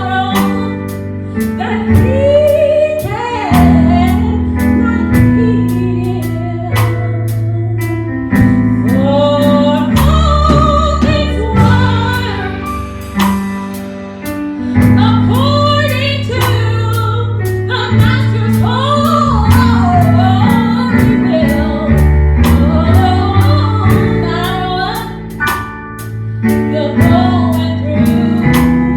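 Gospel worship song: a sung vocal melody over bass and a steady drum beat.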